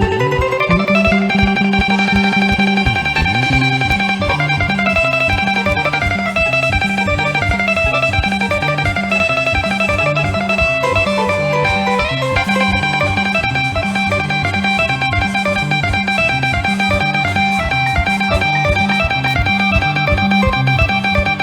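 Instrumental dance music, loud and steady: guitar lines over a walking bass and an even beat, with no singing.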